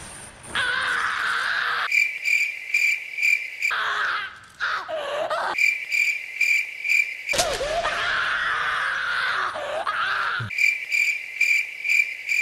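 Crickets chirping in evenly repeating pulses, about three a second. The chirping comes and goes in three stretches, and in between there is a hissy sound with wavering tones.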